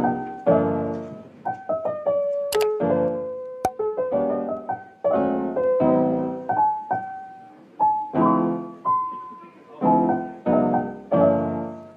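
Piano music: struck chords and short melodic phrases, each note dying away before the next.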